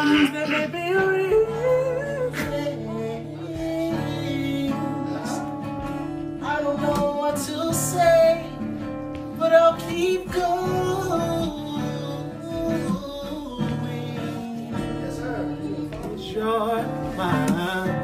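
Men singing a melody with acoustic guitar accompaniment.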